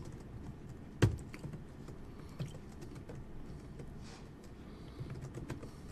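Keystrokes on a computer keyboard, sparse and faint, with one sharper, louder key click about a second in.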